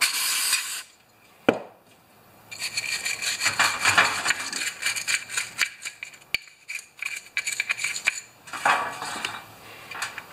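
Scraping and scrubbing inside a small metal Tecumseh carburetor float bowl with a pick and wire brush, working out hardened fuel deposits. A short hiss comes at the start and another about three-quarters of the way in, with a sharp click about a second and a half in.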